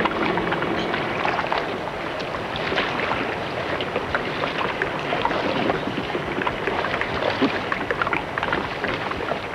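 Choppy sea water slapping and splashing around a small boat, with wind buffeting the microphone: a steady rushing noise full of small irregular splashes.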